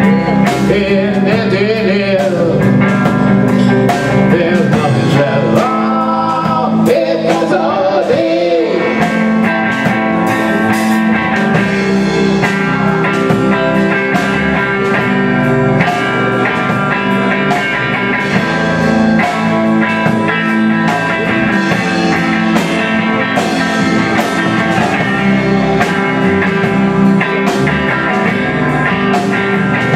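Live blues-rock band playing electric guitars, bass and drums, with a lead guitar bending notes in the first several seconds before the band settles into steadier held chords.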